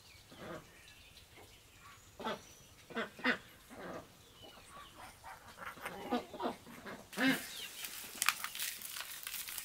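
Ducks quacking in short separate calls, several times over a few seconds, with a high hissing rustle joining near the end.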